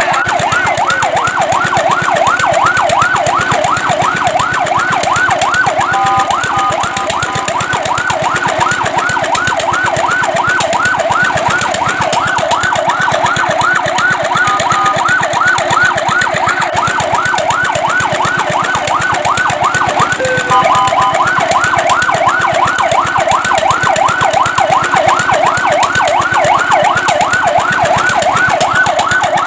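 Fire truck siren sounding a rapid yelp, a wailing tone sweeping up and down about three or four times a second. It breaks three times into a brief steady multi-note tone, once about six seconds in, once midway and once about two-thirds of the way through.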